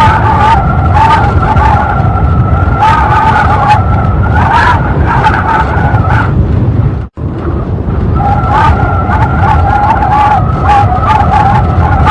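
Strong wind blowing hard: a loud, steady rush with a wavering two-note whistling howl above it. The sound drops out for an instant about seven seconds in, then resumes.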